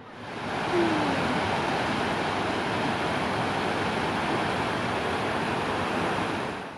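Shallow river water rushing over a low stone weir, a steady, even rush that swells in over the first second and cuts off at the end.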